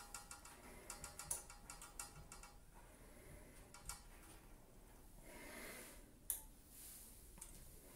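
Faint rapid ticking for the first two or three seconds as the electric radiator's thermostat knob is turned, then a single sharp click about six seconds in.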